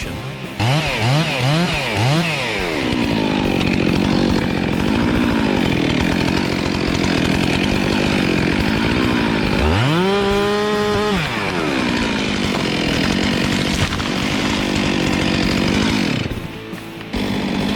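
Gasoline chainsaw blipped in quick revs, then held at full throttle, its note pulled down as it cuts through a tree trunk. About ten seconds in it screams up to a higher pitch for a second, as if clear of the wood, then settles back into the cut. It stops near the end.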